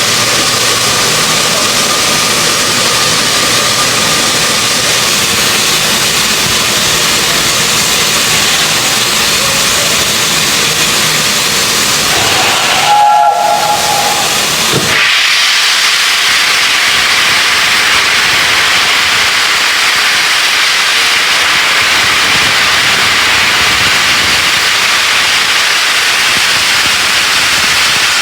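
Peppercorn A1 steam locomotive 60163 Tornado letting off steam: a loud, steady hiss. About halfway through there is a short tone lasting a second or two, and after it the hiss turns brighter and higher.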